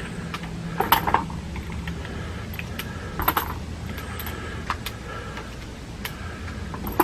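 Metal clicks and clinks from handling a pistol and its ammunition, about five separate sharp clicks a second or so apart.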